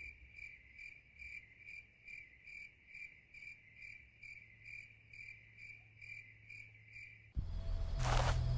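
Crickets chirping at night in an even rhythm, about two and a half chirps a second. Near the end the chirping cuts off and a louder low drone takes over, with a short noisy burst.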